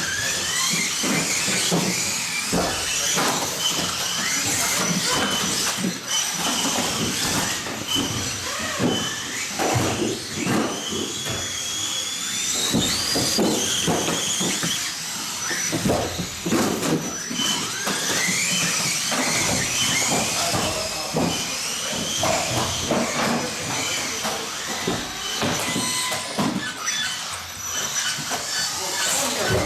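Electric motors of 1/18-scale off-road RC cars whining, rising and falling in pitch as they speed up and slow down around the track. Many short knocks are mixed in.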